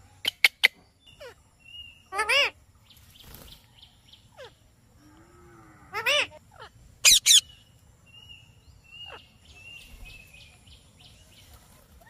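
Rose-ringed (Indian ringneck) parakeets calling: a quick burst of three sharp, shrill screeches at the start, a longer squawk about two seconds in, and another loud cluster of calls around six to seven seconds in. Faint short chirps fill the gaps between them.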